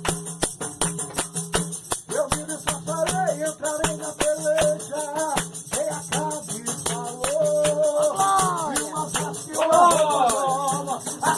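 Upbeat church worship music: a quick, steady percussion beat over a sustained low note, with a melody line coming in about two seconds in and rising and falling more widely near the end.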